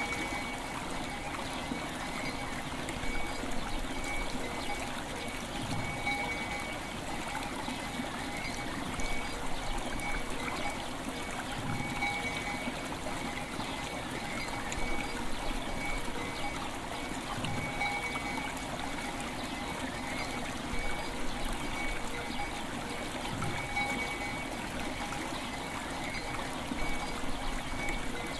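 River water flowing and trickling steadily, with soft ringing bell tones sounding through it at intervals.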